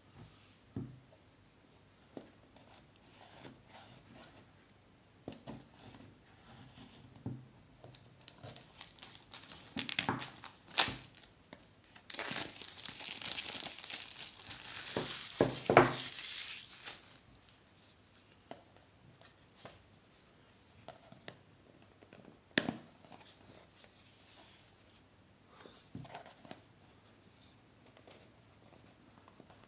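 Product packaging being handled and opened: scattered taps and clicks, then several seconds of loud tearing and crinkling in the middle, followed by quieter handling clicks.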